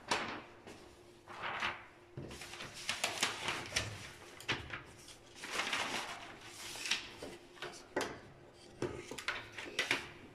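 Drawing instruments working on paper on a drafting board: irregular scratches and light clicks of a compass and pencil marking off distances, with a ruler handled now and then.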